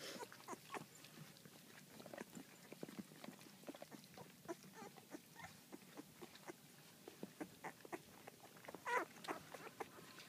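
Two-week-old Bouvier puppies squeaking and whimpering as they crowd against their mother, with many small clicks. One louder squeal comes about nine seconds in.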